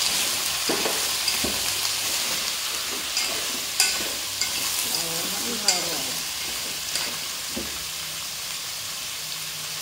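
Chunks of daikon radish, carrot and straw mushroom sizzling in hot oil in an aluminium pot, stirred with wooden chopsticks that click sharply against the pot several times in the middle of the stretch. The stirring stops near the end while the sizzling carries on a little quieter.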